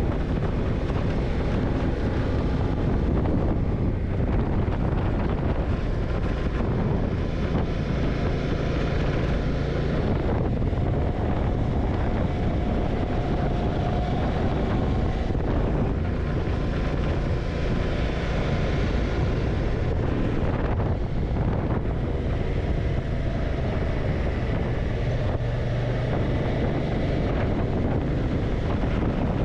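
Yamaha TDM900 parallel-twin engine running as the motorcycle rides along, under heavy wind rush on the microphone. The engine note rises and falls a few times with changes in speed.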